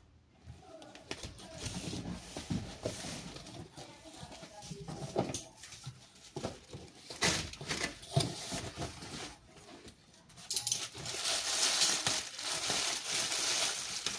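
Parcel packaging being handled: scattered knocks and short rustles, then a longer stretch of loud, steady rustling or tearing from about ten seconds in.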